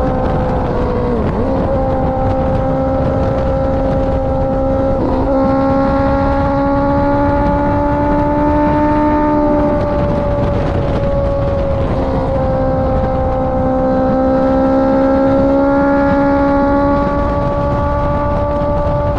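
Honda CBR650R's inline-four engine through a KO Lightning aftermarket exhaust, under way with its note climbing slowly in pitch and breaking briefly at gear changes about a second in, about five seconds in and about twelve seconds in. Wind and road noise run underneath.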